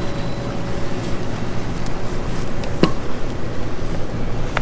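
Above-ground pool filter pump running with a steady hum, with a sharp click about three seconds in.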